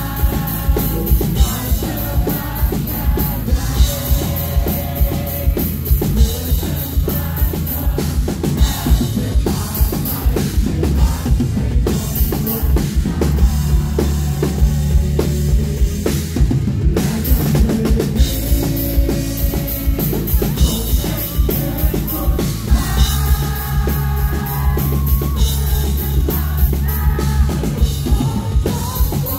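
Live rock band playing loudly through the stage PA: a driving drum kit beat, distorted electric guitar and bass, with a male singer's voice at times.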